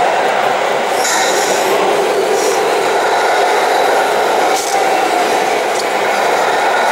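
Hydraulic pump of a 1/14-scale RC tipper running steadily with a whine while the ram holds the tipper body raised, with a few light clinks.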